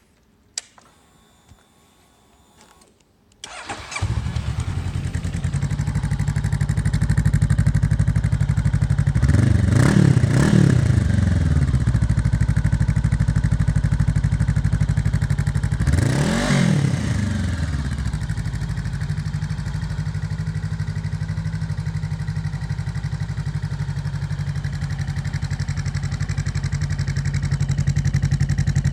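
Honda CB500F's parallel-twin engine, fitted with an IXIL aftermarket exhaust, starts after a few quiet seconds and settles into idle. It is blipped twice, the pitch rising and falling quickly each time, and then returns to a steady idle.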